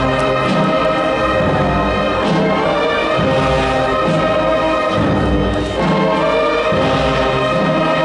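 Brass band playing a slow funeral march, sustained wind chords over bass notes about once a second.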